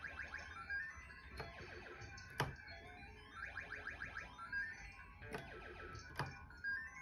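Electronic game music from a Golden Elephant King mahjong arcade machine: bright synthesizer jingles in quick rising runs of notes that repeat. Four sharp clicks cut through it, the loudest about two and a half seconds in.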